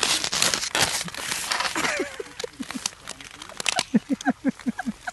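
Snow and ski clothing crunching and scraping as a fallen skier struggles in the snow, then a woman's helpless fit of laughter in short rhythmic bursts, several a second by the end.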